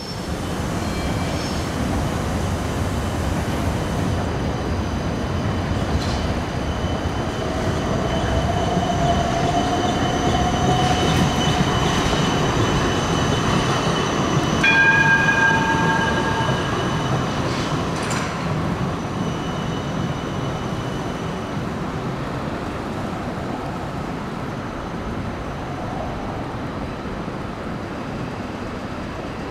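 Siemens Combino D1-class low-floor trams running in street traffic: a steady rumble of wheels and motors, with a faint whine a little before halfway and a brief ringing tone about halfway through, the loudest moment.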